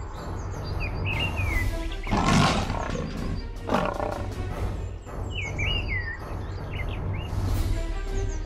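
Two loud, harsh animal calls, like a big cat's roar, about two and four seconds in. They come over background music with a steady low beat, with a few bird chirps.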